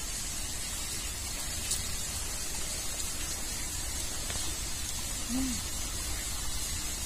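Steady, even hiss of background noise with no speech, marked only by a faint click about two seconds in and a brief low tone a little past five seconds.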